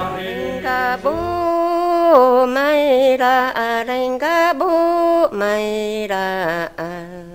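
A single voice singing a slow Bunun melody in long held notes that slide from one pitch to the next, over a low drone that stops about a second and a half in. The singing fades near the end.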